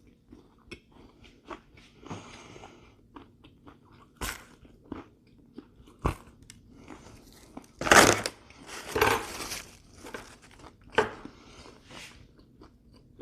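Close-up mouth sounds of a person biting and chewing a fried dough pastry: wet, crackly chewing with small clicks, and a few louder crunchy bursts past the middle.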